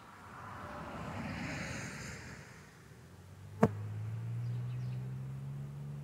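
Honeybees buzzing close around the hive entrance, swelling and fading twice. A single sharp click comes about midway, and after it a steady low hum.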